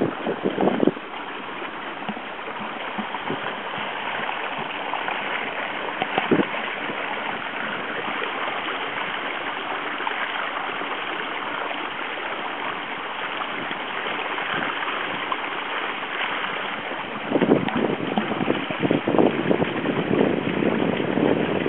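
Water rushing and splashing along the hull of a sailing proa under way, a steady hiss. Gusts of wind buffet the microphone in the first second and again from about three-quarters of the way through, louder than the water.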